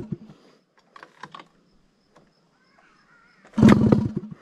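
Straight-piped Honda Dio two-stroke scooter engine firing for a short loud burst about three and a half seconds in, then cutting out. This is a start attempt on an engine that won't keep running. Faint clicks and taps come about a second in.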